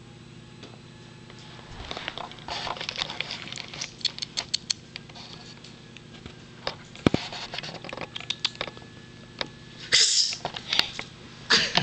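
Scattered light taps and clicks with scratchy rustling, coming in louder clusters about two seconds in, around seven seconds and around ten seconds, over a faint steady hum.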